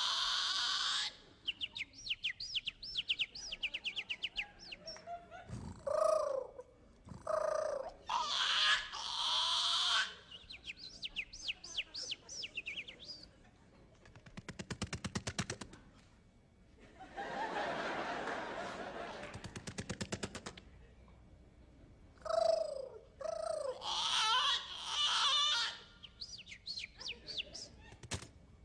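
A man imitating birds with his voice: rapid trains of high chirps and shrill screeches in bursts, with short pauses between them.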